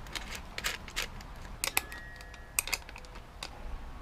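Light irregular clicks and clinks of small metal parts and hand tools being handled while a nut and lock washer are fitted to a motorcycle speedometer mount, with a short metallic ring near the middle.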